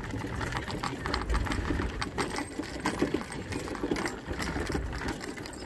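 Mobility scooter rolling along a wooden pier deck: quick, irregular clicks and rattles as the wheels cross the boards, over a low rumble.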